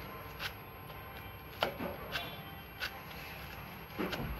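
Knife chopping finely cut spinach leaves on a wooden board: about six sharp, unevenly spaced knocks of the blade against the wood.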